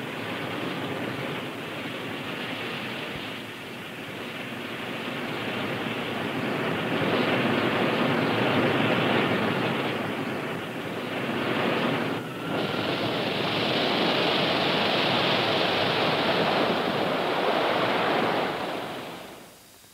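Rocket sled on a high-speed run down the track: a steady rushing noise from its rocket motors and spray. It breaks off briefly about twelve seconds in, comes back louder, then fades out near the end.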